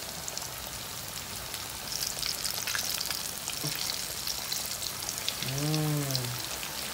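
Flour-coated chicken thighs deep-frying in hot oil in a small wok: a steady sizzle with crackles that grows louder about two seconds in. A short voice sound, like a hum, comes near the end.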